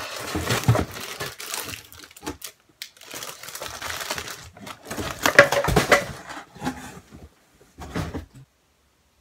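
Hands rummaging in a cardboard shipping box, rustling and crinkling plastic wrapping and shifting small packaged items, with scattered knocks. Loudest a little past halfway, then stops near the end.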